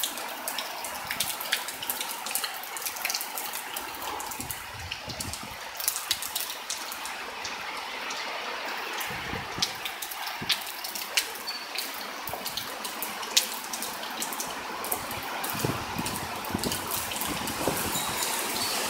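Heavy thunderstorm rain pouring steadily, with many sharp ticks of drops striking nearby surfaces. Strong wind gusts bring a few low rumbles, and the downpour grows louder near the end.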